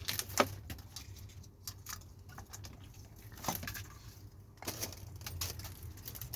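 Irregular clicks and metallic rattles as copper flex is worked through a cable-stripping machine and its sheath peeled off the core. The sharpest click comes just under half a second in, over a faint steady low hum.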